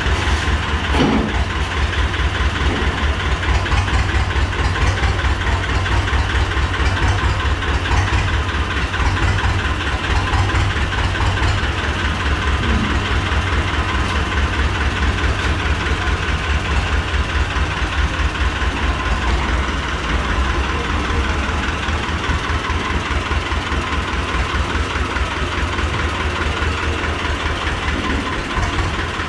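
1970 T-25 tractor's engine running at low speed with a steady, even low beat as the tractor drives slowly forward.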